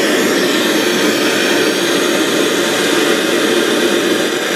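Hitachi TRK-8240RM boombox radio giving out loud, steady static hiss while it is tuned between stations.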